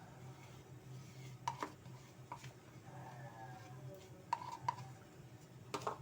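Utensil clinking lightly against a dish several times while bell peppers are filled with minced fish paste; short, faint clinks that ring briefly.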